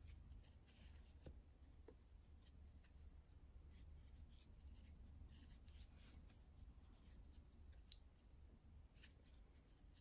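Near silence: faint, irregular scratching and light ticks of a crochet hook drawing yarn through stitches, over a low steady room hum.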